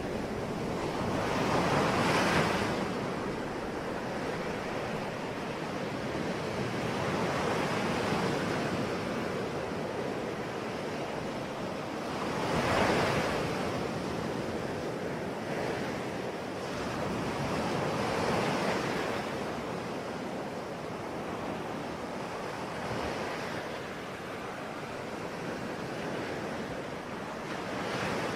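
Ocean waves breaking on a shore, a continuous wash of surf that swells every few seconds, with the biggest breaks about 2 and 13 seconds in.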